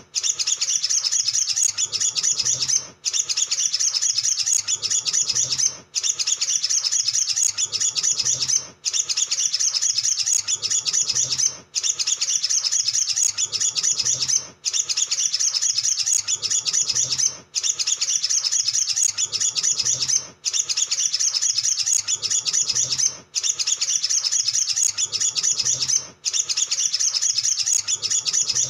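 Olive-backed sunbird song: a rapid, dense, high chattering twitter. It breaks off briefly about every three seconds, as a short recording played on a loop would.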